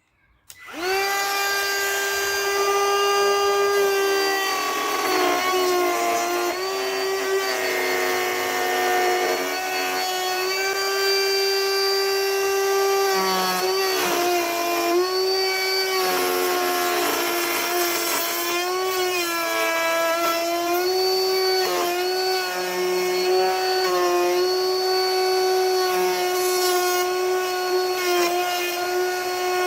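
Handheld wood router switched on, its motor coming up to speed about half a second in and then running with a steady whine that dips in pitch several times as the bit cuts into the wood. It is routing hinge mortises into a wooden tabletop through a template.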